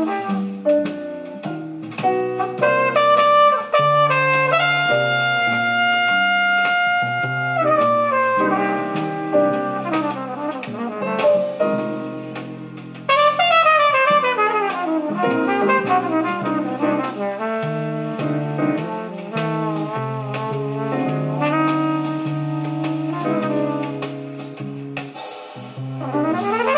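Jazz with trumpet and saxophone over drums, with cymbal ticks keeping time, played back through loudspeakers on test: the Philips AD3800AM full-range driver with the Philips AG9014 amplifier. A quick falling run of notes comes just after the middle, and there is little deep bass.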